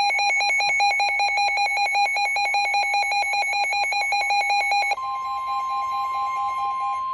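NOAA Weather Radio emergency alert tones. A rapidly pulsing, warbling alarm tone gives way about five seconds in to a steady single tone, signalling that a severe thunderstorm warning is about to be read.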